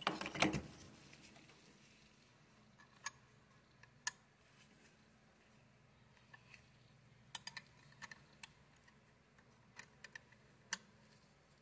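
A short clatter of tools being handled, then scattered small metallic clicks and clinks as a stamped steel reel wrench is fitted over the scalloped handle nut of a Penn Jigmaster 500S reel and turned to tighten it.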